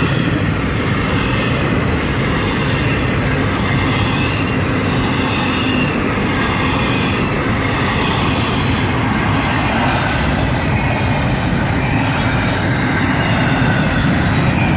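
Long freight train of empty cars rolling past close by: a steady, continuous rumble of wheels on rail.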